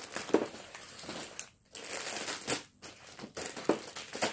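Crinkling and rustling of plastic-wrapped fireworks packages being rummaged through by hand, in irregular spells broken by short pauses.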